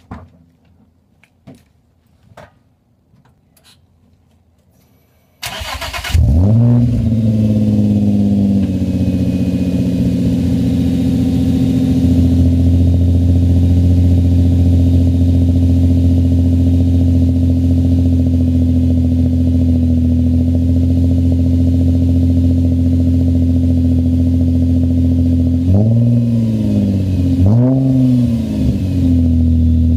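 Infiniti G35's 3.5-litre V6 through a Magnaflow true-dual cat-back exhaust with X-pipe, cranked and started about five seconds in after a few faint clicks. It runs at a fast idle for a few seconds, then settles to a lower steady idle. Near the end the throttle is blipped twice briefly before it drops back to idle.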